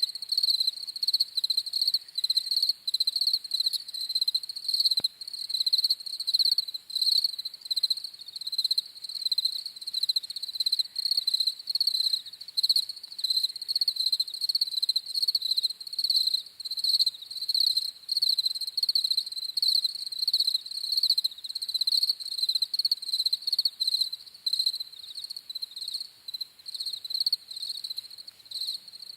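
Crickets chirping in a continuous chorus of high, rapidly pulsing chirps.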